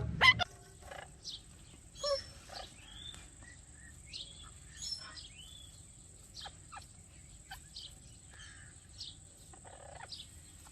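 Ringneck parakeet chirping: a loud call right at the start, then a string of short, faint chirps and whistles, some sliding up or down in pitch.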